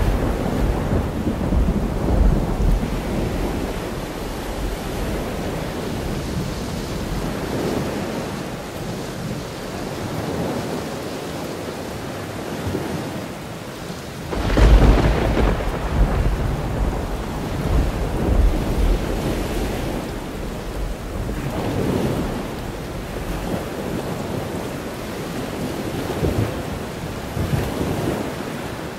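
Thunderstorm: steady rain with rolling thunder, and a loud thunderclap about halfway through that rumbles away.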